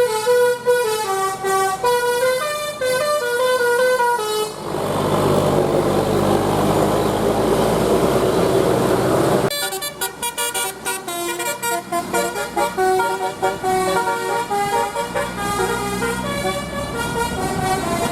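Telolet basuri musical air horn on a bus playing a tune of quick stepped notes. About four seconds in the melody stops and a few seconds of engine and road noise follow, then a second, busier horn melody starts and runs on.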